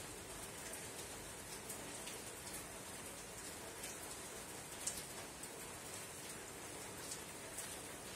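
Soft rain falling on a tin roof: a steady hiss with scattered single drops ticking, one louder drop about five seconds in.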